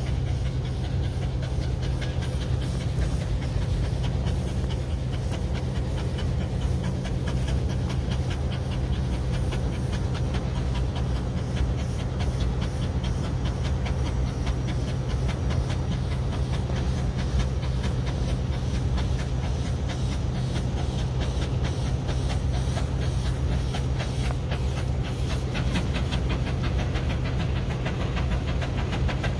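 Steam traction engine pulling an eight-bottom plow under load, its exhaust chuffing in a steady rhythm over a continuous low rumble.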